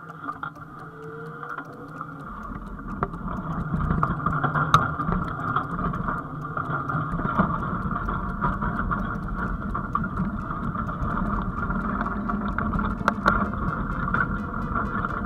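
Frost TGF/A 540 stubble cultivator working the ground behind a tractor, heard from the implement's frame. It is a steady rush of soil and straw over the tines with a machine drone, getting louder a few seconds in as the tines bite into the ground, and a few sharp clicks.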